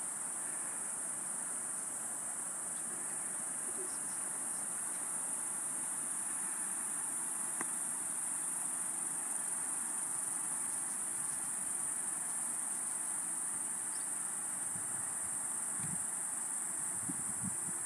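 A steady, high-pitched insect chorus, cricket-like, that never lets up, over a soft even hiss of outdoor ambience. A few faint low thumps come near the end.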